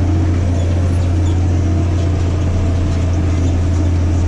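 Massey Ferguson 8210 tractor's diesel engine running steadily under load at about 1700 rpm while pulling a disc harrow; a constant low drone.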